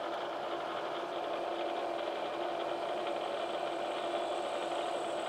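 Bridgeport vertical milling machine running steadily, a constant hum with a faint high whine on top.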